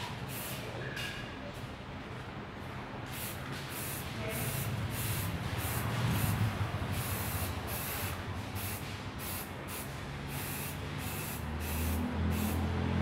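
Aerosol can of gold spray paint hissing in many short bursts, about one or two a second, as paint is sprayed onto a statue. A low hum comes in near the end.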